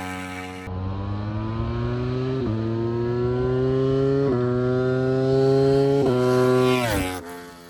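Ducati V4 motorcycle engine with an aftermarket exhaust, pulling hard through the gears. The engine note climbs steadily and drops sharply at three upshifts, about two and a half, four and a half and six seconds in, then falls away as the throttle closes near the end.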